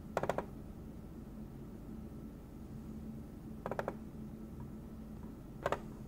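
Raw contents of computer RAM (/dev/mem) played back as audio with aplay: a faint steady low hum broken three times by a brief cluster of rapid clicks, near the start, just before four seconds in and near the end.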